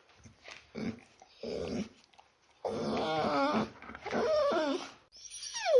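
Small dog whimpering and whining: a few short snuffles, then two wavering whines of about a second each, and a high whine that glides down near the end.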